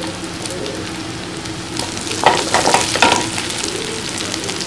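Green chillies, curry leaves and chopped aromatics sizzling in hot oil in a nonstick frying pan, stirred with a wooden spatula. About two seconds in, the spatula scrapes and knocks against the pan in a louder burst of clatter for about a second.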